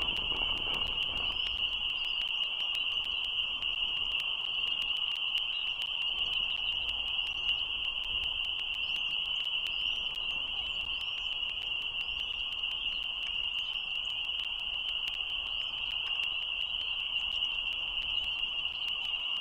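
Dense frog chorus, a steady high-pitched ringing with no breaks, with a few faint short rising chirps in the middle.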